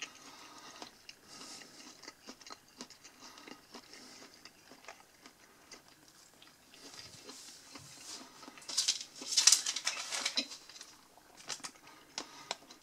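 Light handling noises: small clicks and taps, with a louder crinkling rustle of a paper till receipt being picked up about nine seconds in.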